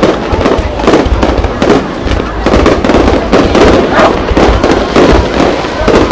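Aerial firework shells bursting in a continuous barrage: loud bangs and crackles in quick succession, with no pause between them.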